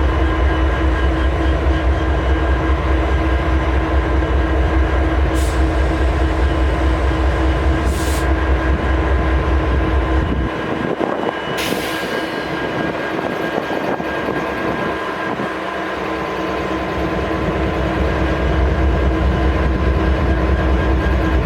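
Idling diesel locomotives: the steady low drone of an EMD 710-G3B prime mover with a GE locomotive's air compressor, several steady tones running through it. A heavy low rumble cuts out about halfway through and builds back in near the end, and there are three short hisses.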